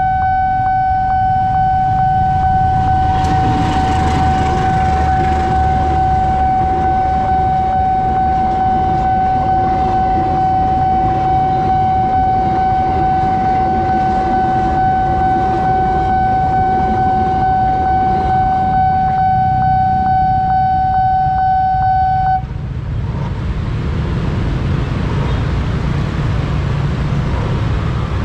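Railroad level-crossing warning alarm sounding one steady high tone while a passenger train rumbles past; the alarm cuts off suddenly about 22 seconds in, the signal that the crossing is clearing, leaving the sound of waiting motorcycle traffic.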